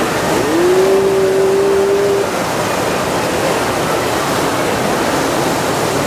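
White water rushing steadily down the rapids channel of a river raft ride. A single held tone sounds over it from about half a second in, for nearly two seconds.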